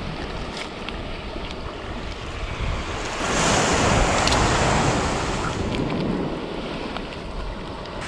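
Sea surf washing in. A wave surges up about three seconds in and fades over the next few seconds, with wind buffeting the microphone.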